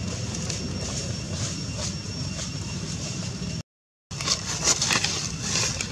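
Dry leaves crackling and rustling as a monkey rummages in the leaf litter, over a steady low rumble and a faint steady high whine. The sound cuts out completely for about half a second in the middle, and the crackling is louder and denser after the gap.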